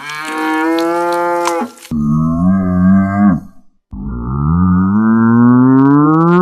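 Cows mooing: three long moos one after another, the last rising slowly in pitch.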